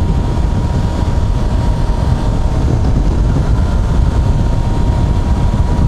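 Yamaha FZ6R inline-four engine running steadily while riding, buried under loud, steady wind rumble on the microphone, with a thin steady whine over it.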